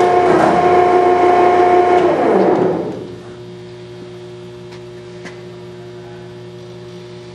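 Horizontal baler's hydraulic power unit, driven by a 10-hp three-phase electric motor, running loud with a steady whine while the ram strokes. About three seconds in it drops to a much quieter steady hum, the pump running unloaded as the ram stops.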